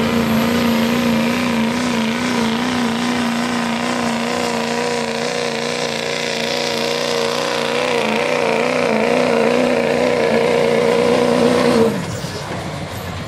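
Diesel pickup truck engine at full throttle pulling a weight-transfer sled, held at high revs with a slight wavering in pitch, then dropping away suddenly near the end as the driver lets off.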